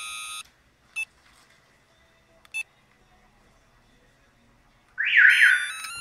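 Electronic beeps from a Viper remote-start alarm system and its 7944V two-way remote during remote pairing: a short steady beep at the start, two brief chirps, then about five seconds in a loud warbling chirp followed by a run of stepped tones, signalling that the remote has paired.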